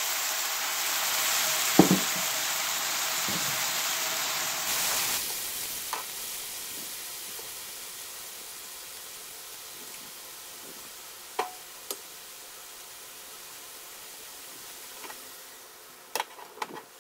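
Seared mushrooms sizzling in a nonstick frying pan as a dark sauce is poured in and stirred with a silicone spatula. The sizzle is loud at first, drops off sharply about five seconds in, then fades lower. A few sharp knocks are scattered through it.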